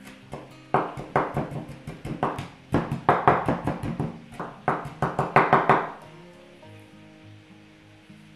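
Chef's knife mincing fresh dill on a wooden cutting board: rapid runs of sharp chopping strokes against the wood. The chopping stops about six seconds in. Background music plays throughout.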